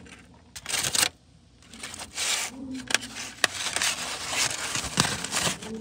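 Aluminium foil crinkling and rustling in the hand, with many small crackles, as a hot foil-wrapped sandwich is handled. There is a louder rustle about a second in.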